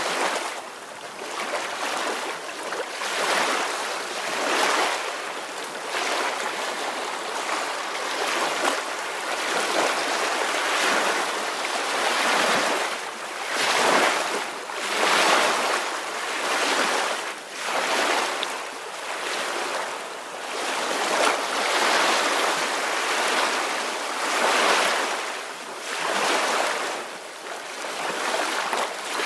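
Small ocean waves washing onto a shore, a steady hiss of surf that swells and recedes every second or two.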